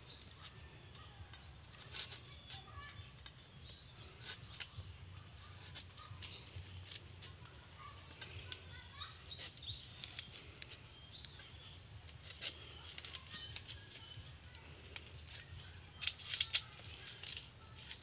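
Small birds chirping in short, repeated calls over scattered sharp clicks and cracks from a knife hacking at and prying a nipa palm fruit cluster off its tough stem.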